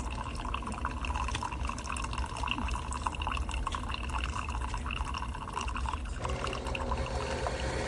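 Single-serve coffee maker dispensing coffee into a cup: liquid pouring and dripping. About six seconds in, the sound changes to a steady hum.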